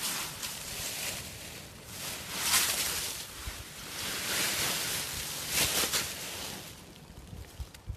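Dry fallen leaves rustling and crunching as a lion rolls on its back in a pile of them, in rising and falling swells, the loudest about two and a half and five and a half seconds in.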